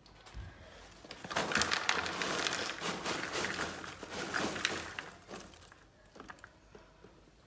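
Microwave popcorn poured from its paper bag into a bowl: the paper bag crinkling and the popped kernels tumbling in, from about a second in until about five seconds. A few light rustles follow.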